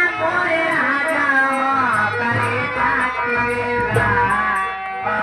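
Live folk music from a nautanki troupe: steady held notes under a melody that slides and wavers in pitch, with low drum beats.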